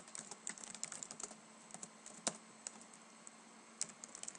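Faint typing on a computer keyboard: a quick run of key clicks over the first second or so, then a few scattered keystrokes, the loudest a little past two seconds in.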